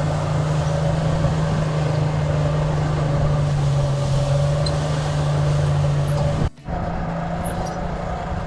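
A blacksmith's forge running steadily while steel rod heats to forge-welding temperature: a constant droning hum from its air supply. The sound cuts out for a moment about six and a half seconds in, then carries on a little quieter.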